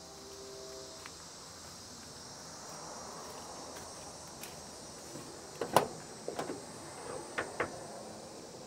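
Latch and hinge of an old steel truck cab door: one sharp clack about halfway through, then several lighter clicks as the door is opened. Insects buzz steadily in the background.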